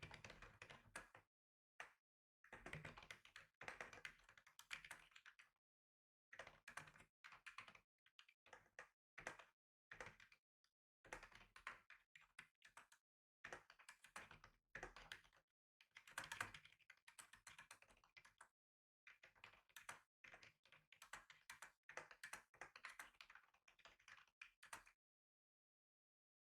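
Quiet typing on a computer keyboard: runs of rapid key clicks broken by short pauses, stopping shortly before the end.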